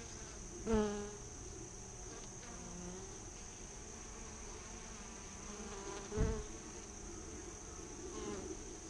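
Insects droning steadily at a high pitch, with two short low thumps, one about a second in and one just after six seconds.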